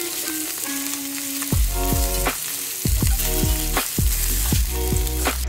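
Ahi tuna patties sizzling in hot oil in a stainless steel frying pan, a steady crackling hiss. Background music plays along, with a regular beat coming in about a second and a half in.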